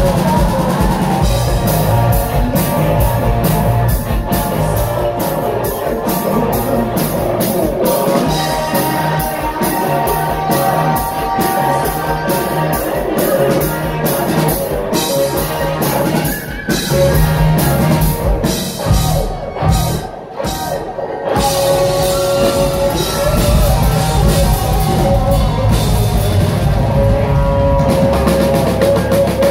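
Live rock band playing loud through a stage PA: drum kit, electric guitars and a lead vocal. The drums and cymbals drop out briefly about two-thirds of the way through, then the full band comes back in.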